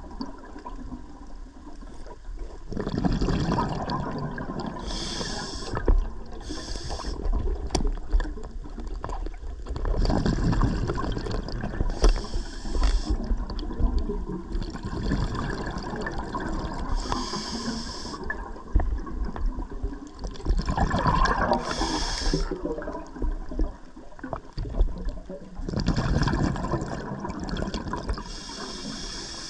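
Scuba diver breathing underwater through a regulator: short hissing inhales alternate with louder bursts of bubbling exhaled air, a breath every few seconds.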